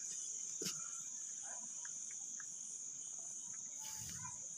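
Crickets chirring steadily in the dark, a continuous high-pitched trill, with a few faint clicks and rustles from a bulb being handled.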